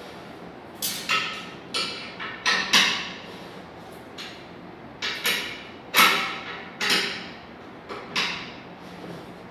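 A string of irregular sharp knocks and clinks, about a dozen in several seconds, some with a short ringing tail, from sofa parts being handled and fitted together during assembly.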